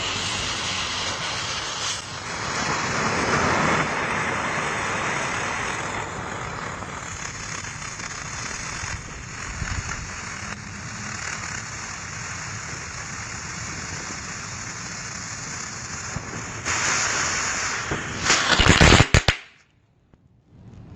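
Fireworks hissing and crackling continuously, swelling a few times and loudest near the end, then cutting off suddenly.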